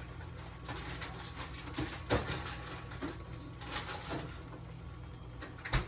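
Light kitchen handling noises, a few scattered clicks and knocks of cookware and utensils, over a steady low hum.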